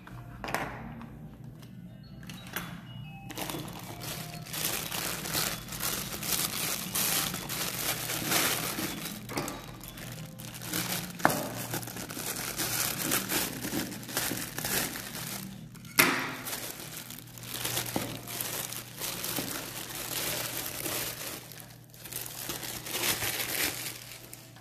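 Plastic mailing bag and bubble wrap crinkling and rustling as a parcel is opened and the wrapped item handled, with a couple of sharp snaps partway through.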